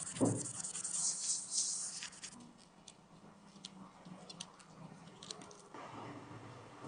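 Small handling noises of repair work: a hissing scrape for about two seconds, then scattered light clicks.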